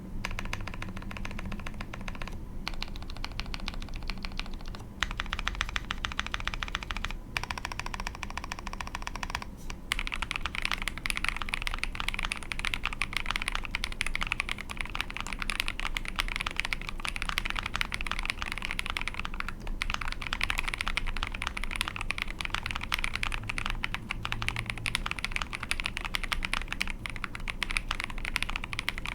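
Continuous fast typing on an Ai03 Polaris mechanical keyboard with a POM plate, Krytox-lubed Husky linear switches and ePBT keycaps: a steady stream of key strikes. It gets denser and a little louder about a third of the way in.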